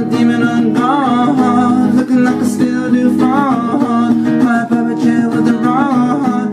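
Acoustic guitar strumming steadily, with a wavering melody line that comes back about every two and a half seconds.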